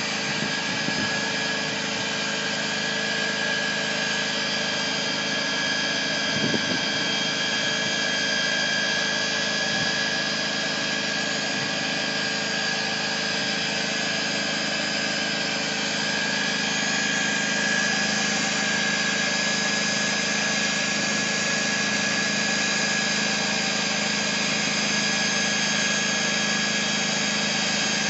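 Corded electric drill running steadily as it bores down into road asphalt, a constant motor whine that holds the same pitch throughout.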